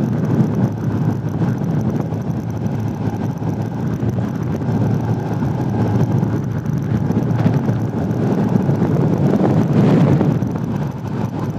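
Strong wind rushing steadily over the camera microphone on a moving motorcycle, mixed with the bike's engine and road noise.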